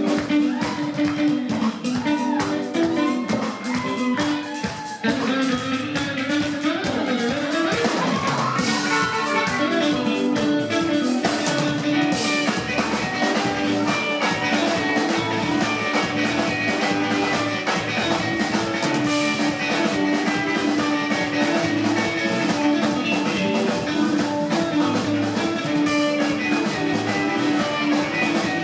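A live band playing afro-soul music with a steady sustained note under it; the drum hits thicken into a full beat about five seconds in.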